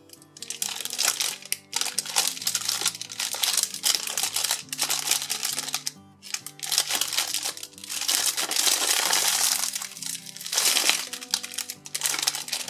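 Clear cellophane wrapper crinkling as it is handled and squeezed, in several long stretches with short pauses, over light background music.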